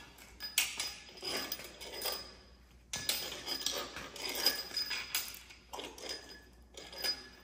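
Metal hand tools and parts clinking and scraping irregularly against the aluminium cylinder head and valvetrain of a Gen 2 Ford Coyote V8 as it is worked on by hand during a teardown.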